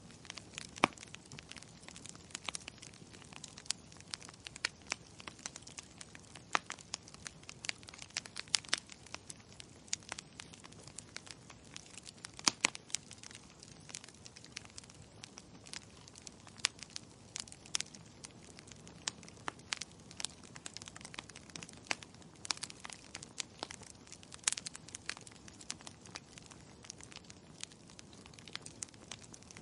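Wood fire crackling: a soft steady hiss broken by frequent irregular pops and snaps, some much sharper than others.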